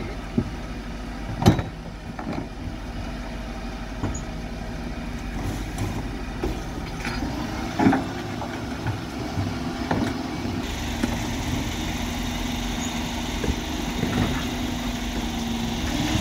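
Refuse truck engine running steadily while its electric bin lift raises a plastic wheelie bin and tips it into the hopper, with sharp clanks and knocks of the bin against the lift; the loudest knock comes about one and a half seconds in, another as the bin is tipped about eight seconds in.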